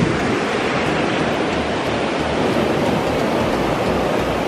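Ocean surf breaking and washing up the beach as a steady rush of noise, with wind on the microphone.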